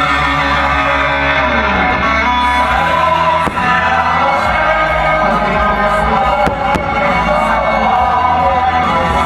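Loud rock music with singing over a sound system, with a few sharp cracks from fireworks.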